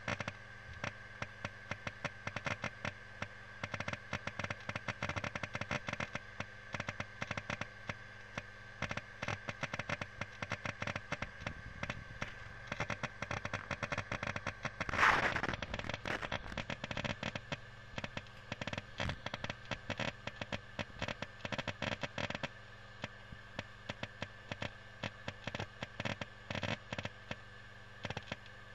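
LaCie 500GB 3.5-inch external hard disk's read/write heads seeking during a large data copy: a dense, irregular stream of sharp clicks, like firecrackers, over a steady high tone. One louder noisy burst comes about halfway through.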